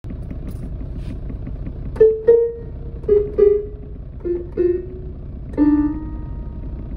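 Digital keyboard played by hand: short single notes in pairs, stepping down in pitch, starting about two seconds in and ending on a held two-note chord, over a steady low background hum.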